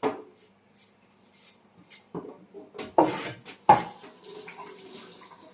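Kitchen clatter of pots, dishes and utensils being handled: a run of sharp clanks and knocks, the loudest two about three seconds in and shortly after.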